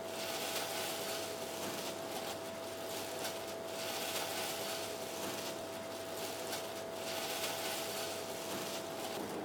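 Gloved hand pressing squid pieces into breadcrumbs in a ceramic bowl: plastic glove crinkling and crumbs rustling in stretches of a second or two with short pauses, while the squid is coated before frying. A steady faint tone hums underneath and stops shortly before the end.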